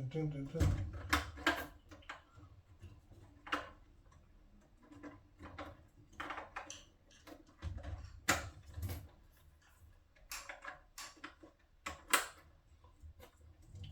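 Scattered sharp clicks and knocks of tools and parts being handled, with a couple of dull thuds about a second in and again around eight seconds.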